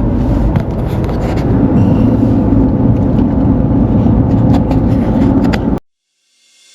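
Steady low rumble of a car or truck driving, heard from inside the cabin, with a few light clicks; it cuts off abruptly to silence near the end.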